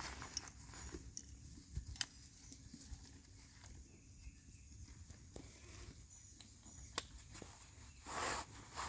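Faint rustling of chainsaw chaps being put on, with a few sharp clicks from the buckles and a short louder rustle near the end.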